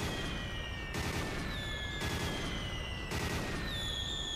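Cartoon cannon fire from an anime soundtrack: cannon shots about once a second, each followed by a falling whistle of the shot in flight.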